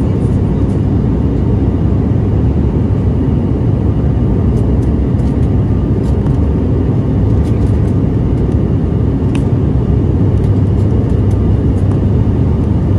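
Steady cabin drone of a high-wing turboprop airliner in flight: engine and propeller noise with a constant low hum, heard from inside the passenger cabin by the window.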